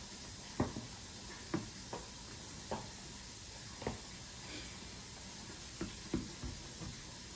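Close-up eating sounds: someone chewing, with about nine short smacks at irregular intervals over a steady low hiss.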